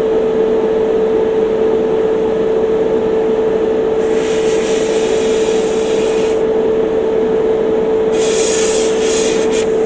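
Airbrush compressor running with a steady hum, while the airbrush sprays paint in two hissing bursts of about two seconds each, the first about four seconds in and the second near the end.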